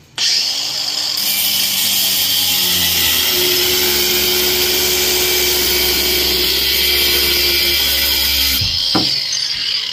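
Angle grinder grinding a metal bracket clamped in a vise: a loud, steady, high-pitched grinding noise that starts abruptly and cuts off about a second before the end, followed by a single knock.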